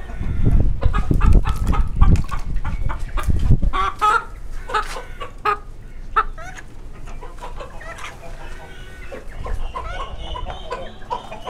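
Aseel chickens clucking in short, separate calls. A loud low rumble runs under the first few seconds.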